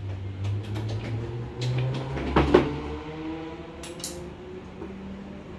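Scattered knocks and clatter of a chair and tableware as people sit down at a dining table, with a cluster of knocks a little past two seconds in and a faint drawn-out squeak-like tone after it.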